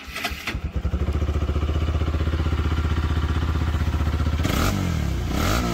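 Motorcycle engine running with an even, rapid pulse, then revved up and down twice from about four and a half seconds in.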